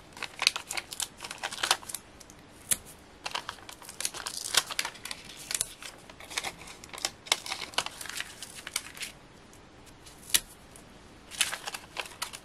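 Sticky pads being peeled off their backing sheet and pressed onto die-cut card pieces: irregular crinkling and rustling of paper with quick, sharp little clicks.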